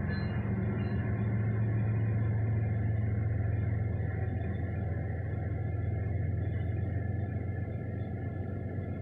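Diesel locomotives of a CSX freight train passing close by at a grade crossing, a steady low engine rumble heard from inside a car. It eases off in the second half as covered hoppers roll by behind the locomotives.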